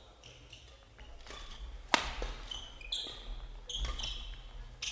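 Badminton doubles rally: sharp cracks of rackets striking the shuttlecock, the loudest about two seconds in, among short high squeaks of shoes on the court floor.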